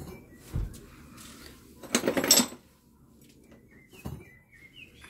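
Ceramic kiln props being taken out of the kiln and set down: a dull thud about half a second in, a loud clatter of clinking ceramic about two seconds in, and a single knock near the end.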